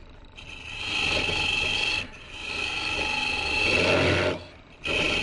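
A hollowing tool cutting into the end grain of a green persimmon goblet turning on a Jet Mini lathe, making a scraping hiss over the lathe's low hum. The cut comes in three passes: the tool lifts off briefly about two seconds in and again near the end.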